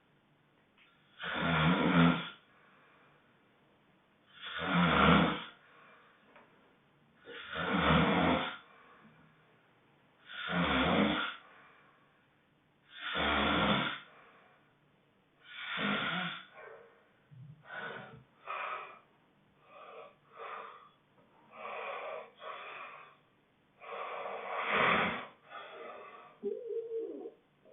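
Loud honking snoring, one strong snore roughly every three seconds for the first half. After that the snores come shorter, weaker and closer together, with one loud snore again near the end.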